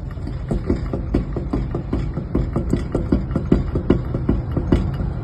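Front wheel with a worn wheel bearing knocking with play: a quick run of light knocks, about four a second, over a steady low rumble.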